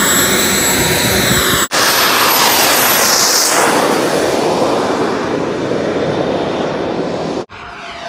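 Large RC model jet's engine running at high power for takeoff: a loud rush with a steady high-pitched whine, broken off abruptly twice, about one and a half seconds in and near the end.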